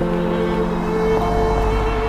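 Background music of bowed strings holding long notes, with a new chord coming in at the start.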